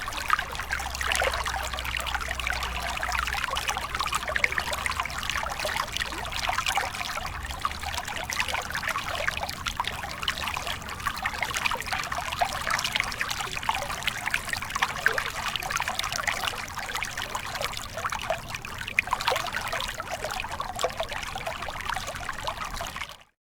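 Small stream flowing, a steady trickling and splashing, cutting out briefly near the end.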